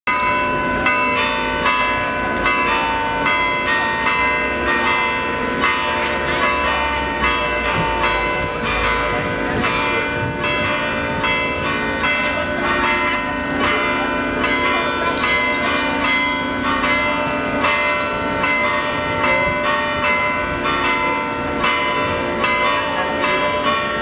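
Church bells pealing without a break, many bells of different pitches struck in quick, overlapping succession.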